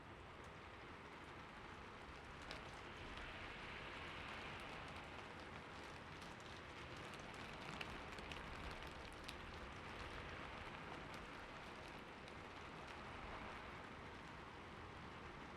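Steady rain falling, an even hiss with scattered individual drops pattering close by.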